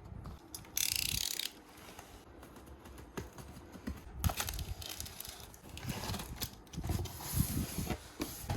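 Scattered mechanical clicks and knocks, with two short hissing noises, one about a second in and another around four seconds in.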